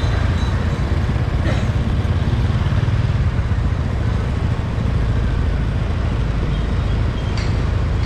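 City street traffic of motorbikes, cars and light trucks, heard while moving through it, with a heavy steady low rumble.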